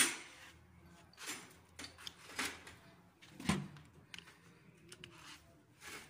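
Scattered clinks and knocks of hand tools and engine parts being handled on a workbench: a handful of short sounds about a second apart.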